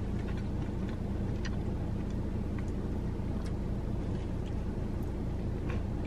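Steady low hum of a running car engine, with faint, scattered small clicks of someone chewing food.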